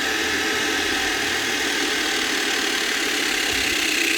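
Battery-powered hydraulic crimping tool running steadily as its pump presses a lug onto a large power cable, growing slightly louder near the end as the crimp builds pressure.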